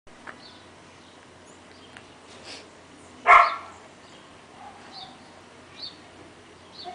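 A single short, loud animal call about three seconds in, with a few faint short high-pitched sounds before and after it.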